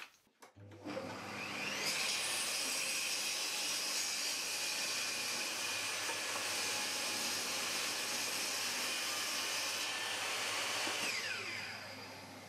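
Benchtop table saw switched on, its motor whining up to speed within about a second, running steadily, then switched off and winding down near the end.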